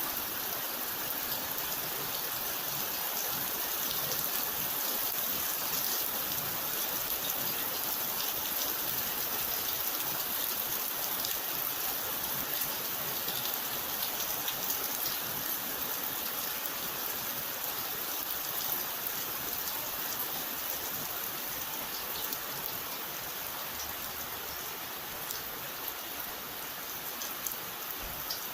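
Steady rain falling, an even hiss with many fine drop ticks, easing slightly near the end.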